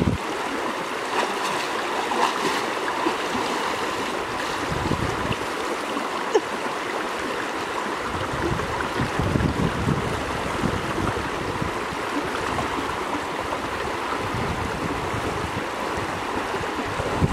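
Fast-flowing, muddy floodwater of a river rushing steadily, with low wind rumbles on the microphone now and then and one sharp click about six seconds in.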